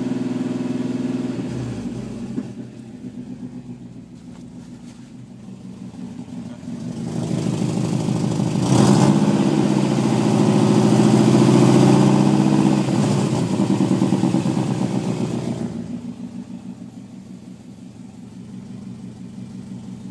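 Subaru WRX's turbocharged EJ20 flat-four engine being revved in neutral. It falls from a raised speed to idle about two seconds in, then climbs to a held high rev, then drops back to idle. The owner is listening for a suspected exhaust leak or bad O2 sensor.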